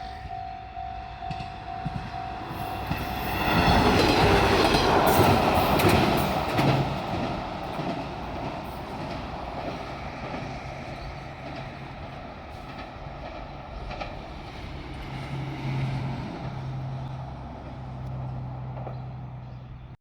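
Level-crossing warning bell sounding in even pulses, then a diesel multiple-unit train passes over the crossing about three seconds in, loudest for about four seconds. A steady low engine drone carries on after it has passed.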